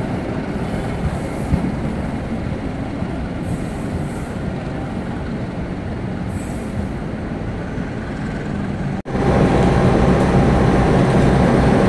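Train rumbling steadily on the rails. About nine seconds in, an abrupt cut to the louder, steady hum of a GE CC201 diesel-electric locomotive standing with its engine running.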